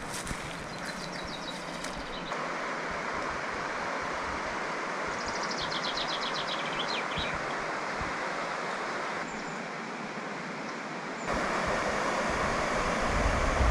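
Steady rush of flowing water, like a mountain stream, changing abruptly a few times as the clips are cut together. Quick series of high chirps come twice over it.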